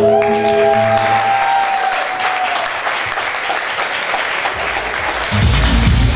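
Audience applauding as a song ends on a long held note. About five seconds in, a dance track with a heavy beat starts up.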